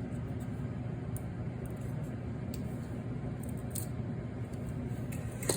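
Steady low hum, with a few faint light clicks of a screwdriver bit and metal parts being handled on a fan motor's housing.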